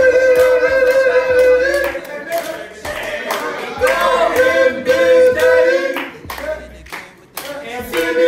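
A group of young men singing a team chant together in short held phrases, with hand-clapping keeping time alongside.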